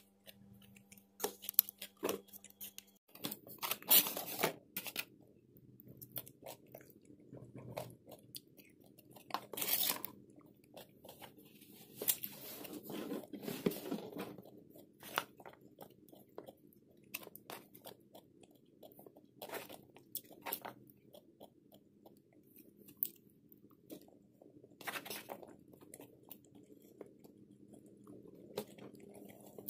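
Chewing and crunching bites of a salad of steamed broccoli, potatoes and macaroni in mayonnaise, with scattered short clicks of a metal fork scooping in the bowl.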